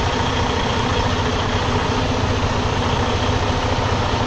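Freightliner Cascadia semi truck's diesel engine running steadily at low speed as the tractor-trailer pulls slowly forward.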